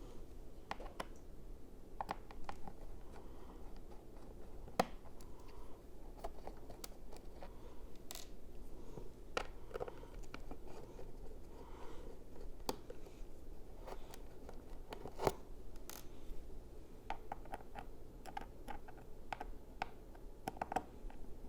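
Small Phillips #00 screwdriver unscrewing a MacBook Pro's bottom-case screws: irregular faint clicks and scratches of the tip working in the screw heads, with a few sharper clicks and a quick run of clicks near the end.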